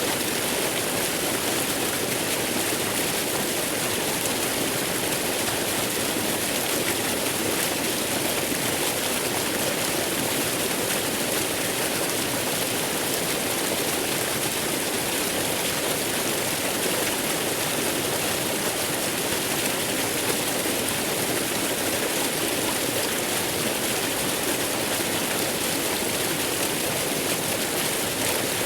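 Waterfall rushing: a steady, unbroken roar of falling water with a strong hiss and no changes or separate splashes.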